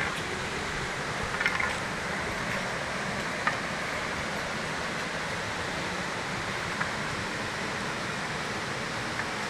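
Steady rush of flowing water from a forest stream or waterfall, with a few faint clicks or taps scattered over it.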